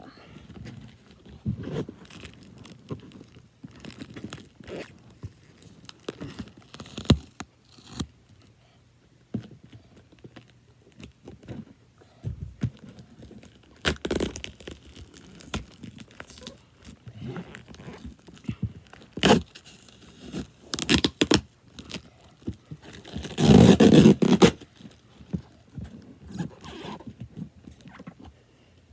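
Cardboard shipping box and its wrapping being pulled and pried at by hand to get it open: irregular rustles, scrapes and knocks, with a louder, longer stretch of noise about 24 seconds in.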